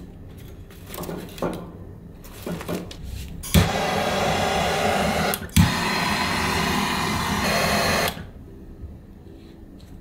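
Hand-held gas torch lighting the kindling in a wood-burning stove. A click about three and a half seconds in sets off a steady, loud hiss of flame that lasts about four and a half seconds. It breaks off briefly with a second click about two seconds in, then cuts off suddenly. Before it come scattered light knocks and rustles at the stove.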